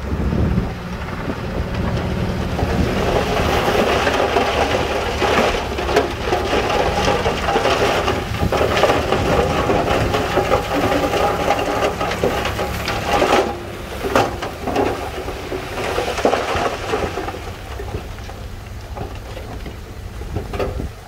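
Bulldozer's diesel engine running under load while its blade pushes rock fill, with a dense crunching and grinding of rock over the engine. A couple of sharp knocks come about two-thirds of the way through, and the crunching eases near the end.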